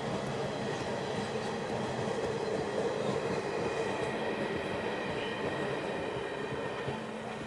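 A train rolling past: a steady rumble of wagons on the rails with thin, high wheel squeal over it, easing a little near the end.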